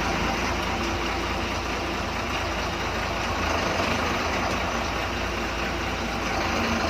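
Bus engine running steadily with a low rumble.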